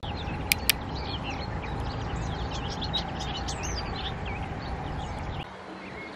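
Several birds chirping and singing outdoors over a steady low rumble of wind on the microphone. Two sharp clicks come about half a second in, and the low rumble drops away about five and a half seconds in.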